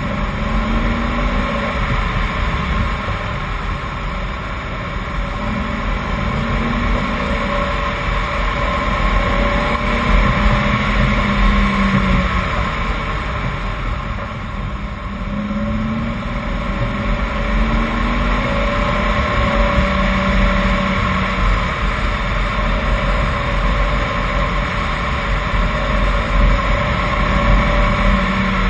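BMW 328i's straight-six engine pulling hard up a twisting climb, its note rising again and again as it accelerates out of the bends and falling back between them. Heavy wind and road rumble sit under the engine.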